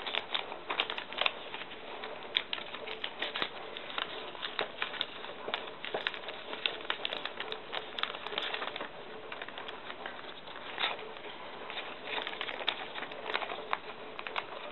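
Thin phonebook paper crinkling and crackling in irregular small clicks as it is folded and creased by hand.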